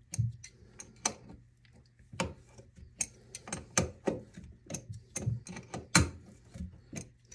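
Adjustable (crescent) wrench clicking against a corroded toilet closet-bolt nut as it is worked loose: an irregular string of sharp metallic clicks, about two a second.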